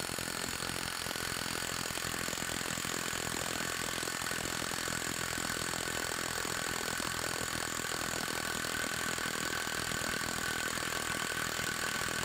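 SeeSii Gen 2 brushless cordless impact wrench hammering continuously at full power against a bolt in a torque tester. It gives a steady, rapid rattle of impacts with a motor whine over it, held under load as the torque builds.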